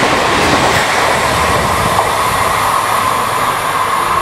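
Express train's ICF passenger coaches passing at high speed: a loud, steady rush of wheels on rail and air as the last coaches go by.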